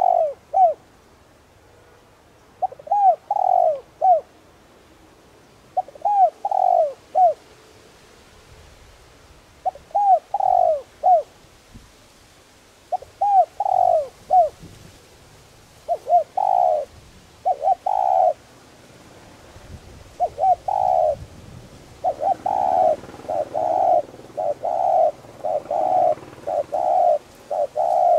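Spotted dove cooing: short phrases of three or four coos every three to four seconds, which turn into a faster, almost unbroken run of coos in the last quarter.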